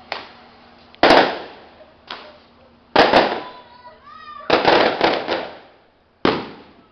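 Fireworks going off: a series of sudden loud bangs, each trailing off in an echo, with two close together, a quick cluster of several about halfway through and a last bang near the end.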